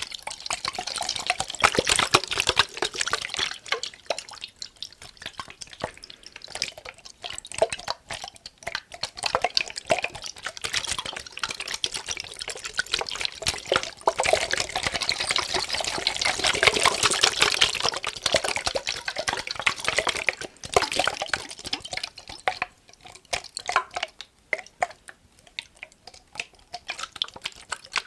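Water shaken and sloshing inside a glass mason jar, mixed with fast tapping on the glass. The sound swells to its fullest about halfway through and thins out near the end.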